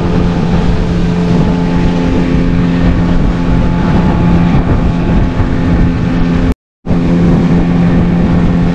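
Motorboat engine running steadily under way, over a dense rush of wind and water noise. The sound drops out completely for a split second about six and a half seconds in.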